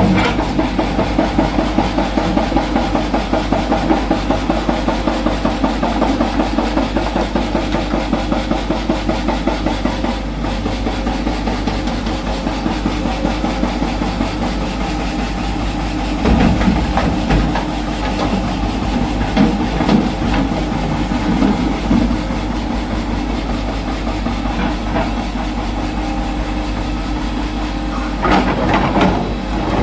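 Hitachi Zaxis 210F excavator's diesel engine running steadily under working load, pulsing regularly for about the first ten seconds. Rock clatters and scrapes against the steel bucket at times, loudest near the end as the bucket digs into the pile.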